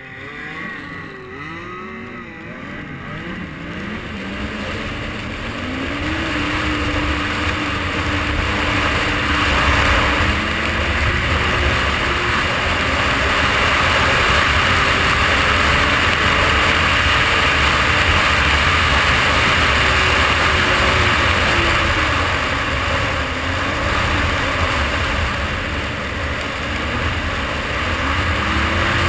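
Snowmobile engine pulling away and building speed: its note rises and falls in short swells for the first few seconds, then climbs and holds steady at speed, easing off briefly near the end. A steady rush of wind runs over the engine.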